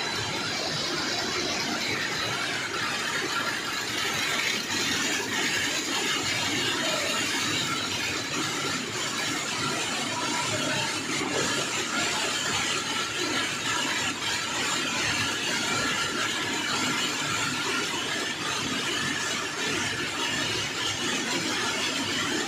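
Plastic tape extrusion and winding machines running: a steady mechanical whir and hiss with a faint high whine.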